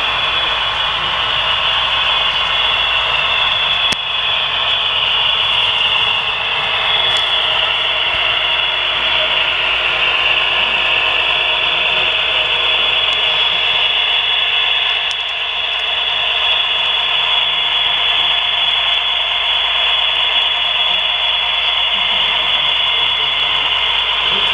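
HO scale Southern Pacific diesel model locomotive and its train running along the layout track: a steady, tinny, hissy running noise with no bass.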